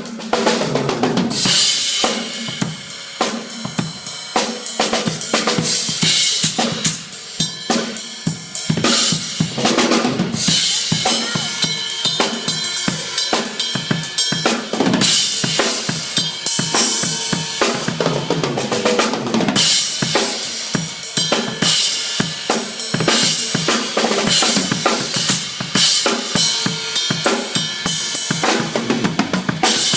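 Drum kit played at a sound check, with snare, bass drum and cymbals going continuously.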